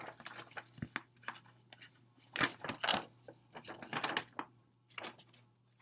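Paper rustling and crinkling with sharp clicks and taps: a folded album poster and other printed inclusions being handled and opened out. The louder rustles come about two and a half seconds and four seconds in.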